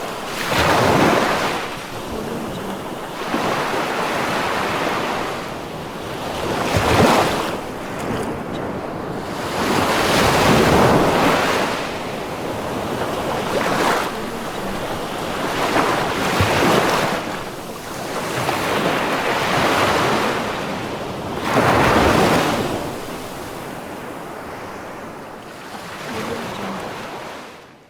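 Ocean waves breaking and washing up the shore, each surge swelling and falling back every three seconds or so, with a wind-like hiss between them. The sound fades out right at the end.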